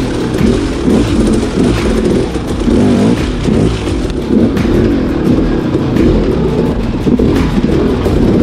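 Dirt bike engine revving up and down as the bike works slowly over rocky ground, the pitch rising and falling every second or so, with scattered light knocks.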